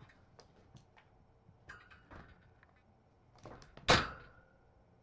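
Kittens playing on cat furniture and toys: scattered light taps and knocks, then one loud sharp knock about four seconds in with a brief ringing after it.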